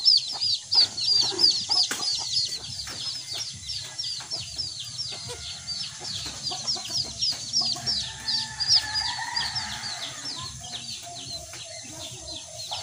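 Birds peeping: a fast, even run of high, downward-sliding peeps, about four a second, loudest early on the run and a little weaker toward the end.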